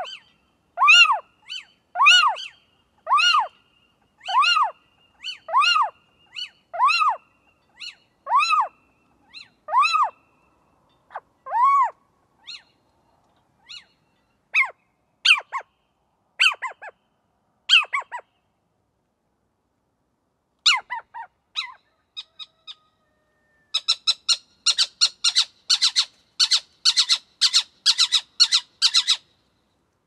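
Little owl calling. A slow series of pitched calls that rise and fall, about one a second, gives way to sharper, shorter calls. Near the end comes a quick run of short high yelps, several a second.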